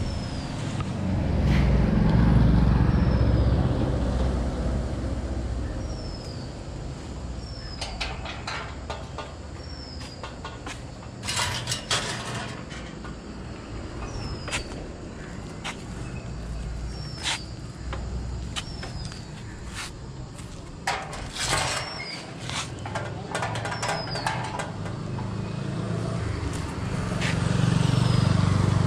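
Motor vehicles passing on a road: an engine rumble swells about two seconds in and fades, and a motorcycle engine passes near the end. Through the quieter middle a bird repeats a short falling whistle every second or two, with scattered sharp clicks.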